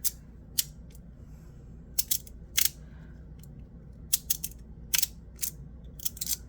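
PdEdc magnetic fidget slider being worked in the hand: sharp, irregular clicks and clacks as its metal halves snap together on their magnets, some singly and some in quick runs of two or three.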